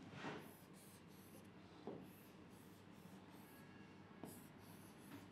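Faint scratching of a stylus drawing lines on an interactive display screen, in a series of short strokes with a few soft taps.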